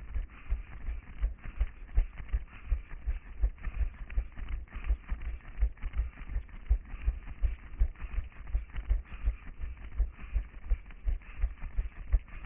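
A runner's footsteps on pavement, heard through a head-mounted camera as steady low thuds about three a second, under a constant hiss.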